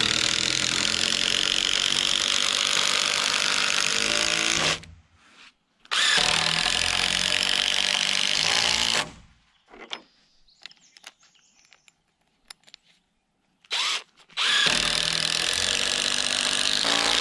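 Cordless drill running under load into a timber beam. It goes in three long runs of a few seconds each, with short pauses between them and a brief blip of the trigger before the last run.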